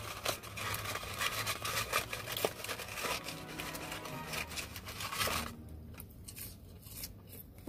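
Paper food wrapper and packaging crinkling and rustling as they are handled, a dense crackle of small ticks for about five and a half seconds. After that it falls much quieter, with a few faint clicks.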